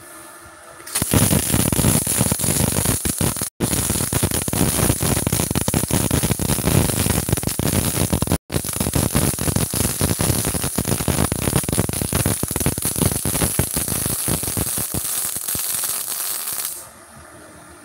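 MIG welding arc on thick steel plate, fed by a MultiPro MIG-MMA/TIG 160 AS-MZ inverter welder with CO2-shielded solid wire. It gives a dense, steady crackle that starts about a second in and stops about a second before the end, broken twice by split-second gaps.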